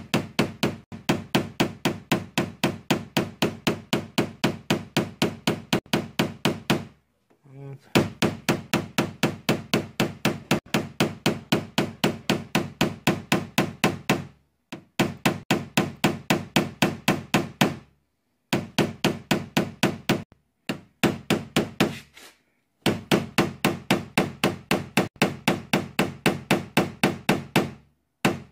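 A small hammer tapping a PDR tap-down punch against a car door panel: rapid, evenly spaced light taps, about four to five a second, in runs of several seconds with short pauses, knocking down and smoothing a leftover crease in the metal.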